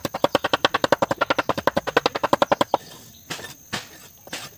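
A steel cleaver chopping curry leaves on a wooden chopping block, a fast even run of knocks at about ten a second that stops about three seconds in, followed by a few slower, separate knocks of the blade.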